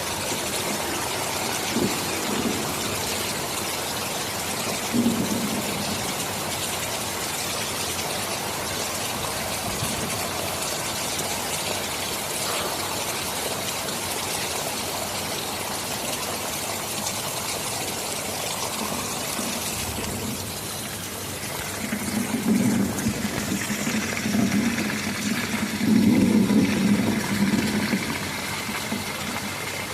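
Steady heavy rain hissing, with low rumbles of thunder: two brief ones early and a longer, louder roll in the last third.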